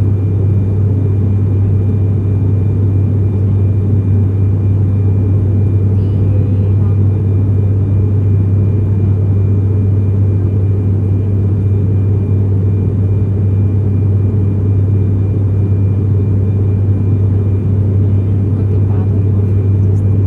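Steady drone of an airliner cabin in flight: engine and airflow noise, low and unchanging, with a faint thin steady whine above it.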